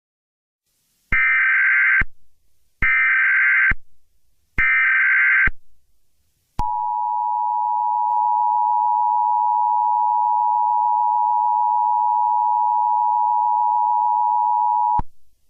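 Emergency Alert System SAME header: three bursts of shrill data tones about a second each, with short gaps between, followed by the steady two-tone EAS attention signal, held for about eight seconds before cutting off suddenly.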